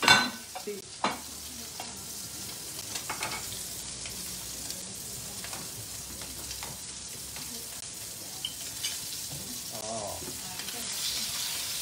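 Luncheon meat and sausage strips sizzling as they pan-fry in oil, with a few sharp clicks near the start. Near the end a spatula stirs them and the sizzle gets louder.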